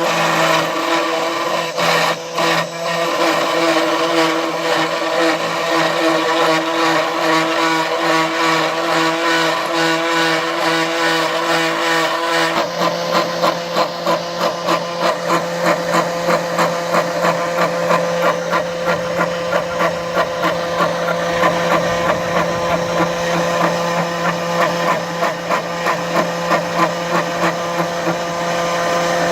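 CNC milling machine spindle running with a cutter milling metal, a steady whine. About twelve seconds in, the tone shifts and the sound begins to pulse in a regular rhythm, a couple of times a second.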